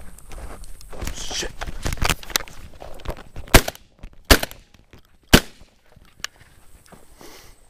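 Footsteps rustling through dry weeds, then three shotgun shots in quick succession about halfway through, under two seconds from first to last.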